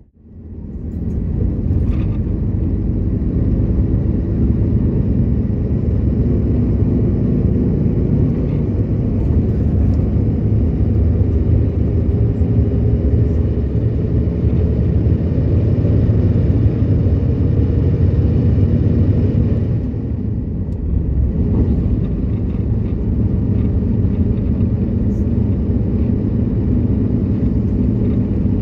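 Coach bus on the move: a steady low rumble of engine and road noise with a faint engine hum. It fades in over the first couple of seconds and eases off for a moment about twenty seconds in before picking up again.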